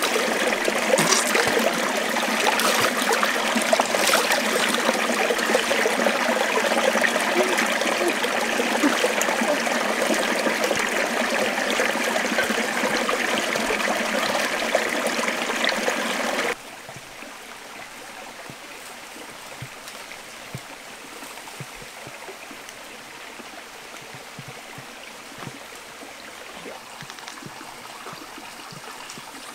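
A rocky stream running: a loud, steady rush of water that cuts off abruptly a little over halfway through, leaving a much quieter trickle.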